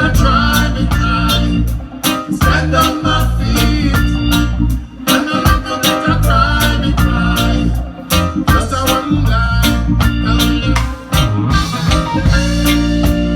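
Reggae band music: a heavy bass line and drums with guitar in a steady rhythm, an instrumental stretch without singing.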